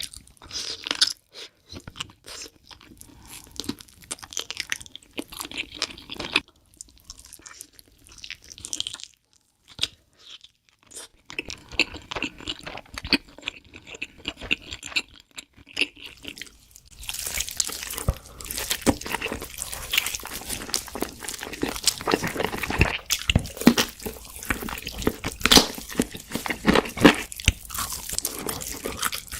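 Close-miked eating sounds: crunchy bites and chewing. The crunching is sparse and quieter at first, with a short pause, then comes louder and denser a little past halfway.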